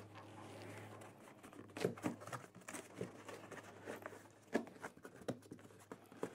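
Hands working the corner clips of a large cardboard shipping carton: scattered faint knocks, taps and scrapes as the clips are pushed in through the cardboard.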